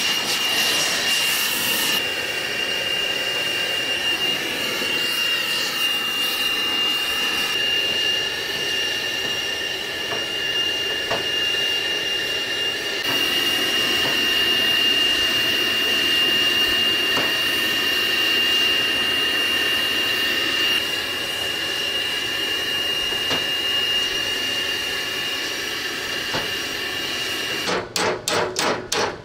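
Gas torch running with a steady hissing roar and a constant high whistle as it heats a bent steel edge red-hot for straightening. Near the end a quick run of hammer blows on the steel, about three or four a second.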